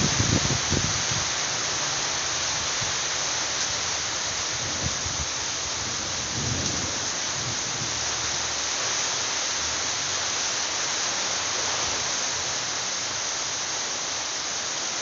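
Heavy rain pouring steadily on leaves and ground, a dense even hiss. Short low rumbles come near the start and again about six and a half seconds in.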